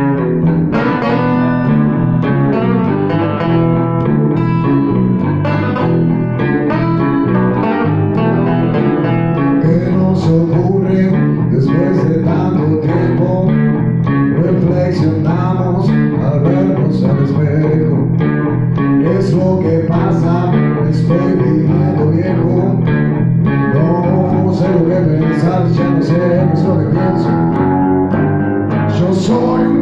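A small band playing live: a steel-string acoustic guitar, a second guitar and an electric bass guitar, with a man singing into the microphone.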